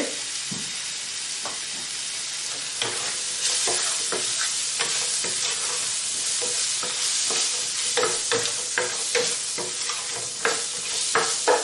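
Onions frying in olive oil in a pan, sizzling steadily, while a spoon stirs them with repeated knocks and scrapes against the pan. The knocks come thickest in the last few seconds.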